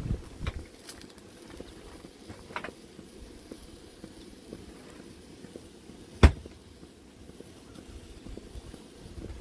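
Camp-cooking handling sounds: a few light clicks and one sharp knock about six seconds in, over a faint low rumble.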